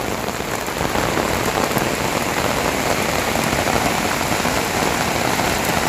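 Heavy rain pouring steadily, a dense hiss that grows a little louder about a second in.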